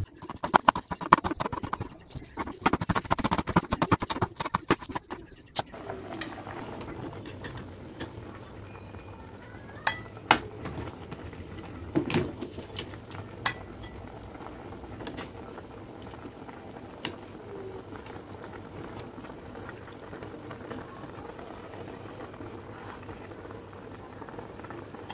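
Hot cooking oil in a wok crackling and sizzling densely for about five seconds as fried shallots drain above it in a wire strainer. After that comes a quieter steady simmering hiss, with a few sharp metal clinks of a ladle against a pot and bowl.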